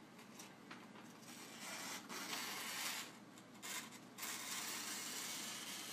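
Scissors sliding through a sheet of wrapping paper with a rushing, rustling sound. The cut starts about a second in and comes in three stretches, with short pauses near the three- and four-second marks.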